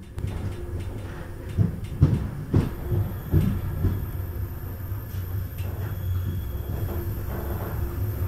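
Passenger train rolling, heard from the open rear door of the last carriage: a steady low rumble of wheels on rail, with a cluster of loud clanks and knocks about one and a half to four seconds in.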